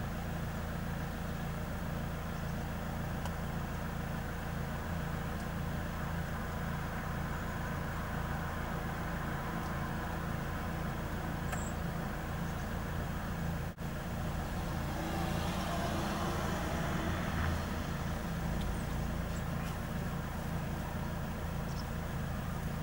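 Road vehicle engines idling: a steady low rumble, briefly cut off about 14 seconds in, then swelling louder and fuller for a few seconds.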